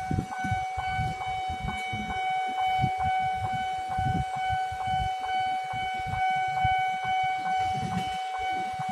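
Railway level-crossing warning alarm sounding: one steady electronic tone with a tick about two to three times a second, the signal that a train is approaching the crossing. A low, uneven rumble runs underneath.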